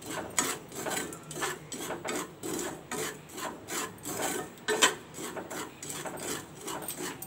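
A metal spatula scraping through hot salt and black chickpeas in a heavy-bottomed iron kadhai, in quick rhythmic strokes of about three a second, with one sharper stroke about five seconds in. The chickpeas are being dry-roasted in the hot salt with constant stirring.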